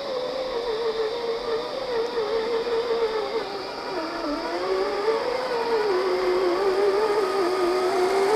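Whine of scale RC crawler trucks' electric motors and gearboxes, an Axial SCX10 II Range Rover Classic followed by a Traxxas TRX-4 Cherokee, climbing a dirt trail. The pitch wavers with the throttle, and about halfway through a second truck's whine joins at a slightly different pitch.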